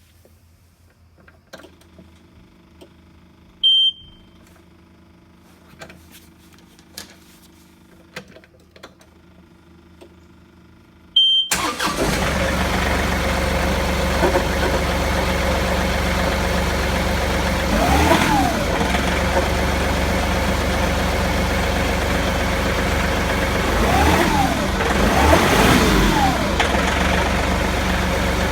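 A John Deere 2038R compact tractor's three-cylinder diesel is started after two short beeps, catching about 11 seconds in and then running steadily. Several times a growl sweeps up and down in pitch over the engine note. It is the low growling noise heard since the 270B backhoe stopped working, cause unknown.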